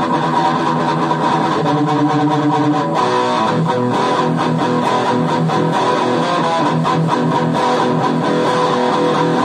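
Electric guitar played through an amplifier: a black-metal riff of rapidly picked notes, shifting to lower notes about three seconds in.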